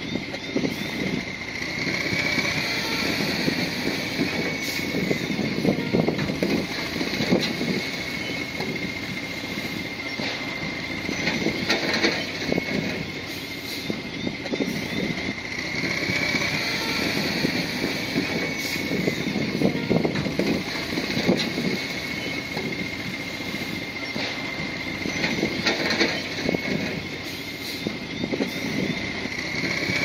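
Crawler bulldozer working: its diesel engine runs steadily under irregular small knocks, with a thin high whine that swells and fades several times.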